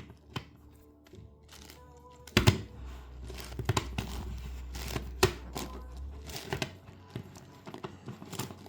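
Plastic layers of an 11x11x11 Rubik's cube clicking and clacking irregularly as they are turned by hand, with sharper clacks about two and a half and five seconds in.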